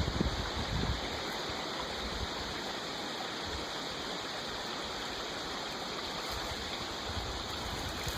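Creek water running steadily, an even rush of noise, with some low rumbling in the first second.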